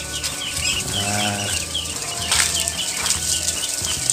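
A large flock of young Mojosari ducklings, about 13 days old, peeping continuously in rapid, overlapping chirps, with a couple of sharp clicks about halfway through.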